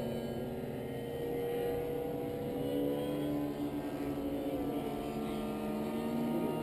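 Engine of a radio-controlled model airplane droning in flight, its pitch shifting and sliding as the plane changes throttle and passes.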